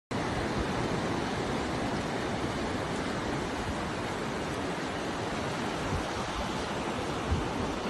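Steady rushing noise of sea surf, with a couple of brief low thumps near the end.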